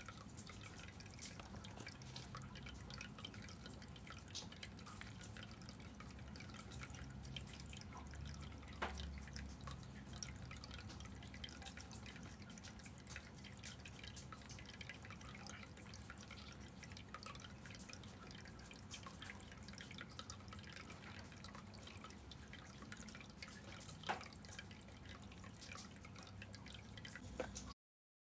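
Small tabletop decorative fountain running: water trickling from the spout into a basin in a steady patter of light drips, with an occasional sharper drop.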